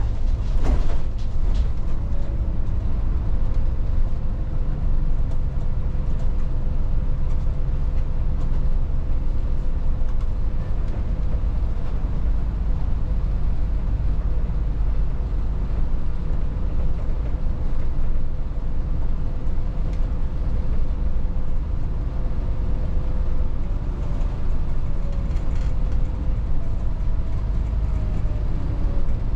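Volvo 8900 city bus driving, heard from inside: a steady low engine and road rumble with a thin steady whine that wavers in pitch near the end. A few clicks and rattles about a second in.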